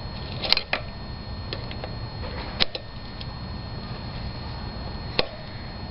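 A handful of sharp clicks and knocks from handling bicycle parts while the wheel is being screwed back on, the loudest about half a second in, over a steady low hum.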